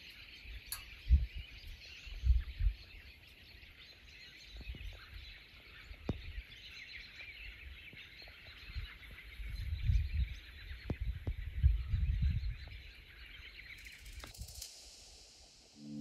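A flock of small birds chattering and chirping steadily, stopping shortly before the end, with gusts of wind buffeting the microphone now and then.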